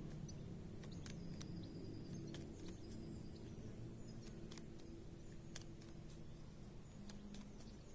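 Quiet background ambience: a low steady hum with scattered faint clicks and a few brief high chirps.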